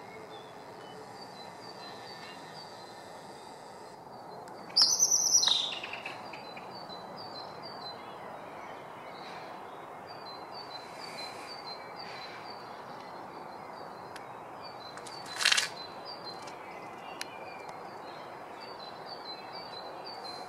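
Night-time outdoor ambience: a steady background hiss with insects chirping in short, evenly repeated trills. About five seconds in a loud high-pitched call slides down in pitch over about a second, and about fifteen seconds in there is a short, loud burst of hiss.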